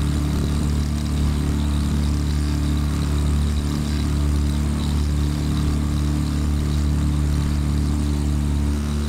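A small boat's motor running steadily under way, a constant low drone of several steady tones with an even hiss above it.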